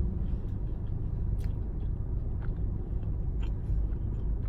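Someone chewing pizza with mouth open, small wet clicks of biting and chewing, over a steady low rumble in a car cabin.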